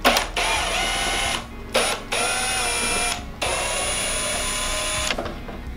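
Cordless drill/driver running in three spells of about one to two seconds and one short blip, the motor whine steady within each run, spinning out the Phillips screws of a headlight housing.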